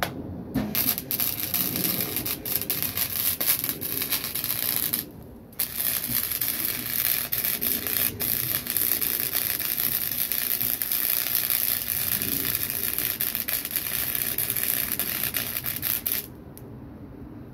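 Electric arc welding: a loud, steady crackle and hiss from the arc with many sharp pops. The arc breaks off for about half a second around five seconds in, restarts, and stops about a second before the end.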